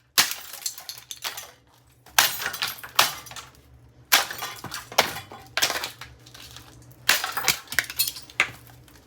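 A MainStays 511406 coffee maker being smashed: a string of about nine sharp hits, roughly a second apart, each with clinking and breaking rattles of plastic and glass pieces.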